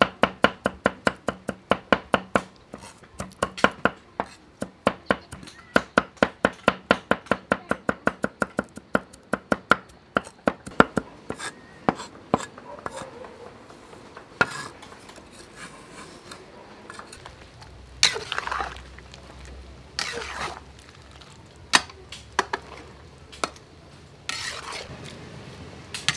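Cleaver chopping on a wooden chopping block: a fast, even run of knocks for about the first ten seconds, then slower, scattered strokes with a few longer, noisier sounds in between.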